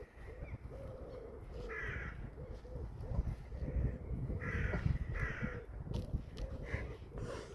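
A bird gives about four short, harsh calls spaced a second or two apart, over a steady low rumble.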